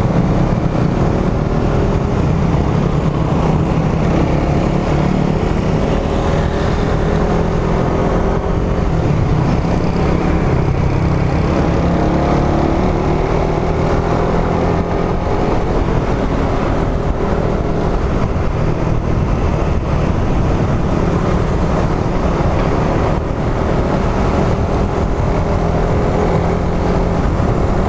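Suzuki Raider R150 Fi's single-cylinder four-stroke engine running gently under load, its pitch slowly rising and falling as the throttle eases on and off through the gears, over a steady low rush of wind. It is a new engine in break-in, ridden gently below 6000 rpm.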